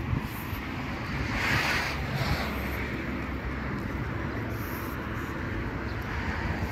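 Outdoor city street ambience: a steady distant traffic rumble, with a brief rushing swell about one and a half seconds in.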